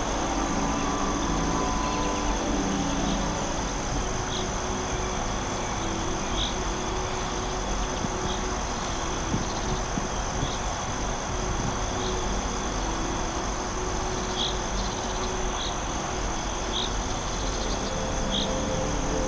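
Forest insects, crickets or similar, trilling steadily and high-pitched, with short chirps repeating every second or two. A low steady hum runs underneath.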